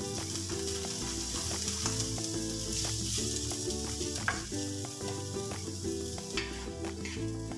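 Chopped onion and cherry tomatoes sizzling as they fry in a pan, stirred with a wooden spatula that scrapes and knocks against the pan a few times. Background music plays underneath.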